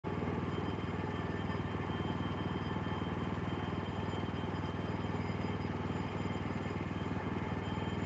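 Small gas engine of a Woodland Mills HM126 bandsaw sawmill running steadily at an even speed, not yet cutting.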